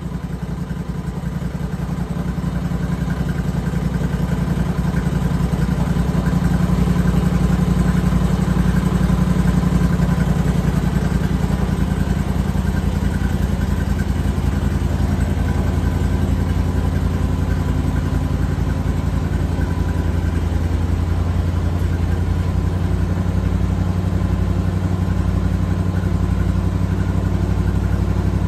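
Homemade bandsaw sawmill running as its sawhead travels along the track past a squared log: a steady motor drone with the band blade, growing louder over the first several seconds and then holding steady.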